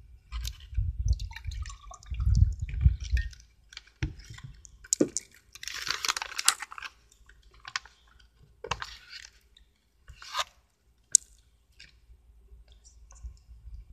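Lemonade poured from a plastic jug into a glass, with a low rumble under the pour. About five seconds in comes a loud spell of plastic bag crinkling, then a few short splashes and knocks as fruit goes into the drink.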